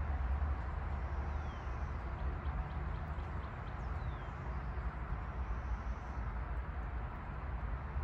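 Outdoor ambience: a steady low rumble with a haze of background noise, and a few faint high bird chirps and two short falling whistles in the first half.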